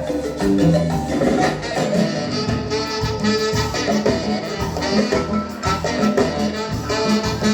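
Marimba band playing a rhythmic tune, with struck mallet notes over a steady beat in the low register.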